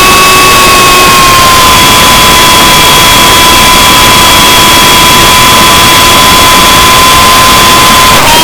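RC helicopter's motor and rotors running in flight, heard loud and overloaded through its onboard camera: a steady high whine over a rushing noise. The whine drops slightly in pitch about a second and a half in and falters briefly near the end.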